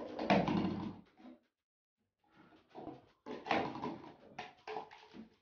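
Clear plastic cups being flipped and landing on a wooden tabletop: a cluster of light taps and clatter in the first second, then scattered short taps later on.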